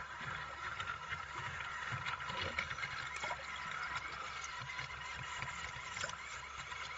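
Remora hybrid battery-powered rotating hull-cleaning brush running underwater against a fouled boat hull: a steady whirring scrub with gurgling water and scattered sharp clicks.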